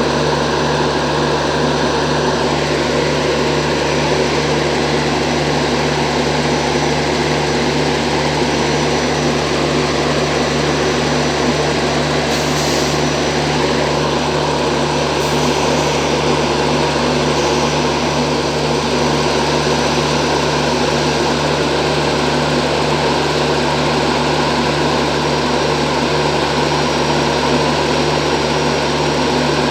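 WAG-9 electric locomotive's generator running with a steady, unchanging machine hum and a constant low drone.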